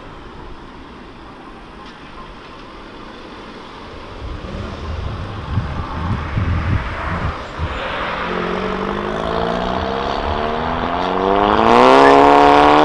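Volkswagen Golf cars driving past: a low, uneven exhaust burble as one car rolls by. Then, from about two-thirds of the way in, a car accelerating hard, its engine note rising steadily in pitch and getting louder to a peak near the end.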